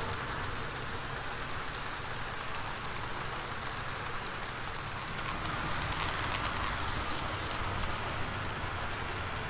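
HO scale model freight train rolling along the layout track: a steady whir and rumble of small metal wheels on the rails, with a run of light clicks in the second half.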